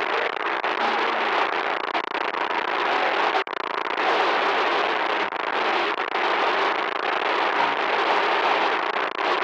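Loud, harsh static noise, a dense crackling hiss that runs on steadily. It cuts out for an instant about three and a half seconds in.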